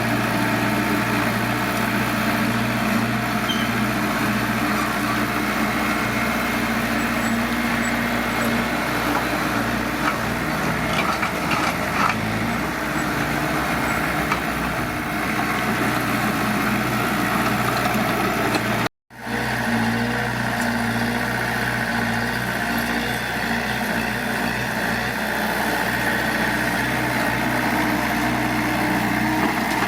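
Diesel engine of heavy earthmoving machinery (bulldozer and dump trucks) running steadily. The sound drops out completely for a split second about two-thirds of the way through.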